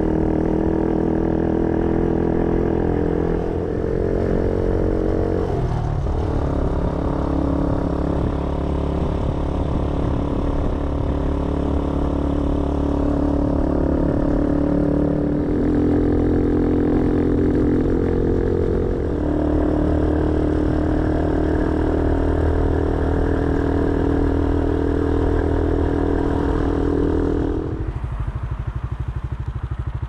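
Motorcycle engine running on the road. Its pitch steps up and down several times as the rider changes speed, then falls away to a low, quieter running about two seconds before the end as the throttle is closed.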